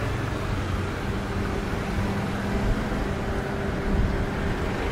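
Road traffic: a steady rumble, with a vehicle engine's hum setting in about a second in.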